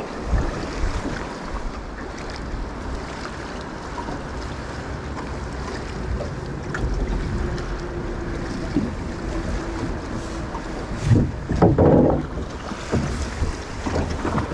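River water rushing past an aluminum drift boat as it is rowed through fast water, with wind buffeting the microphone. A short louder sound comes near the end.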